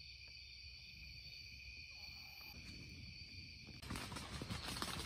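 A faint steady high-pitched drone with low rumble, then, about four seconds in, louder irregular tapping and pattering of acorns falling onto the tent's nylon roof.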